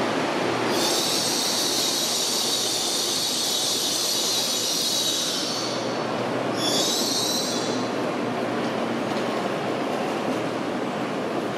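N700S Shinkansen train braking to a stop, its brakes giving a high-pitched squeal for about five seconds, then a second, shorter squeal, over the rumble of the slowing train.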